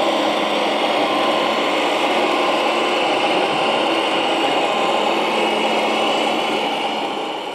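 Steady whirring of the small electric drive motors and gearboxes of 1:16 scale RC military models running, fading out near the end.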